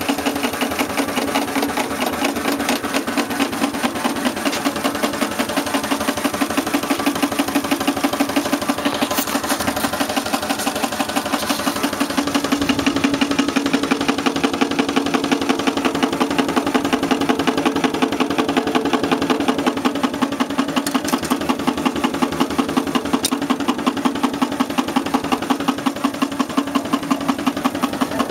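Home-built steam engine running at a steady, even beat on its first run after its boiler test.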